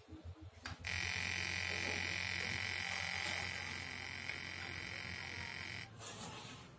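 Steady electronic buzzing tone played through a small speaker that vibrates a round plate, cymatics-style. It switches on about a second in and cuts off near the end, over a low steady hum.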